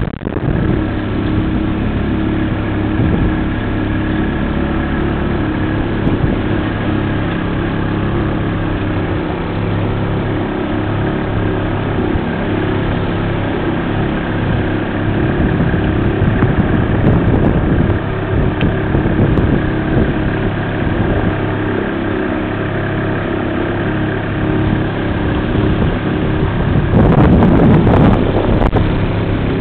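Boat engine running steadily, heard from on board, with a louder rush of noise lasting about two seconds near the end.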